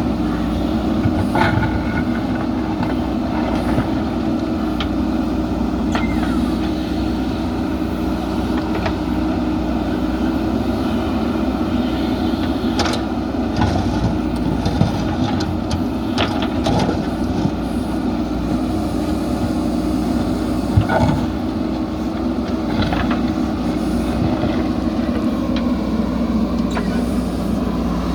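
JCB backhoe loader's diesel engine running steadily while the machine works, with a few short sharp knocks and clanks scattered through it.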